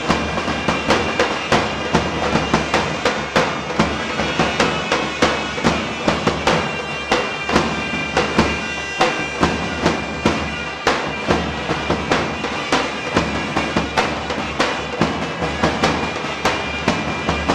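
Loud live folk music: a big drum struck in a steady beat, about three strikes a second, under a piercing reed wind instrument playing held notes.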